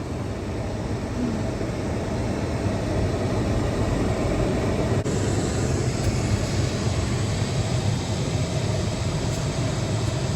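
Car idling with a steady rumble and hiss while its iced-over windows thaw.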